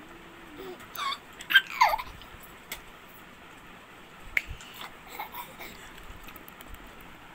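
A baby's high-pitched squeals and babbling, a cluster of quick sliding cries about a second in, then a shorter one midway.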